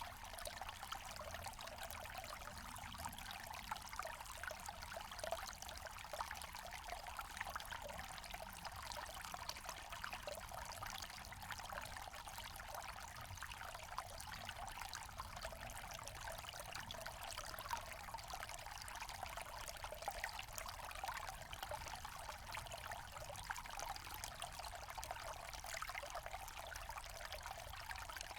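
Forest stream flowing steadily, a continuous trickling and splashing of water with small flickers of louder splashes.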